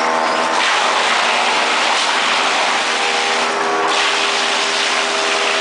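Wood-processing machinery running: a steady motor hum under a loud rushing, grinding noise from the cutting work. The noise eases briefly at the start and again around three and a half seconds in.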